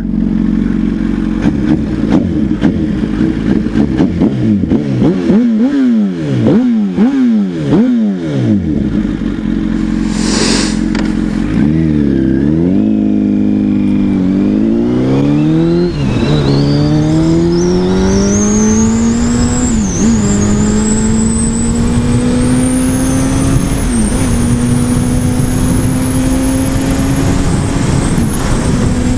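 Honda CBR1000RR's inline-four engine heard from the rider's seat. For the first several seconds the revs rise and fall repeatedly. Then the bike accelerates through the gears, the pitch climbing and dropping back at each of three upshifts, and it settles into a long, slowly rising pull as wind noise builds.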